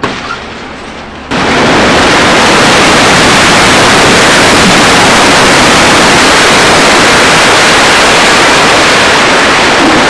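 An eleven-storey concrete building section collapsing during demolition. A sharp crack comes first, then about a second later a sudden, very loud, continuous roar of crashing concrete and rubble that holds steady throughout.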